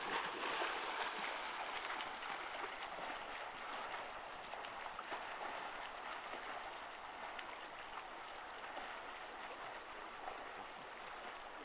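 Swimmers splashing through pool water with their arm strokes and kicks, a steady churning splash. It is loudest in the first couple of seconds and gradually fades.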